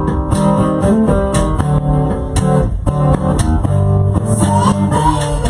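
Live rock band playing an instrumental passage between sung lines: strummed guitar chords over bass with a steady percussion beat, and a short sliding guitar or vocal line near the end.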